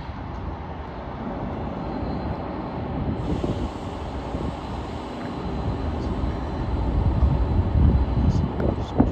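Diesel locomotive rumble: a low, steady drone that grows louder toward the end, with one sharp click just before the end.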